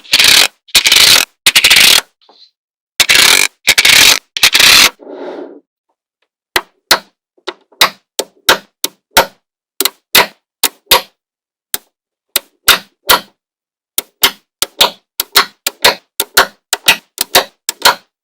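Small magnetic balls rattling and clicking: two loud dense rattling runs of about two seconds each near the start, then single sharp clicks, two or three a second, as balls snap onto one another.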